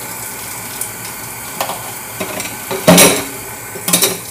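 Kitchen sink tap running steadily while dishes are handled, with a few light clinks and two louder clatters of dishware about three and four seconds in.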